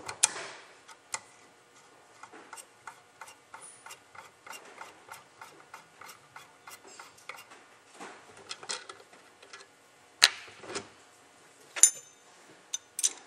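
Light metallic ticks and clicks, a few a second, from the fluid control knob being threaded back onto a Lynx 100C spray gun, with a few louder clicks of metal parts being handled near the end.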